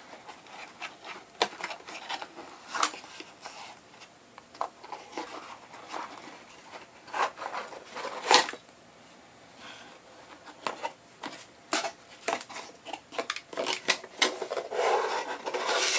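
Cardboard packaging of an AMD stock CPU cooler being handled: irregular scrapes, rustles and clicks as the box flaps are bent back and the heatsink is worked out of its cardboard insert, with a longer sliding rub of cardboard near the end.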